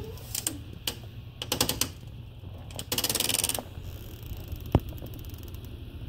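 Irregular crunching clicks and quick runs of rapid ticking, with a longer scraping burst about three seconds in, over a steady low rumble on the microphone.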